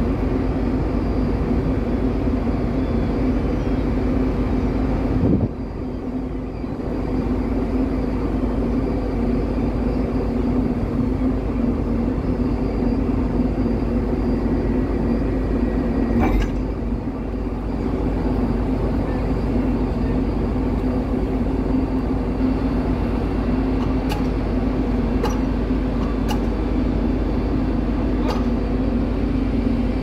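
Steady low mechanical drone of a moored ferry's machinery, with a few faint clicks near the end.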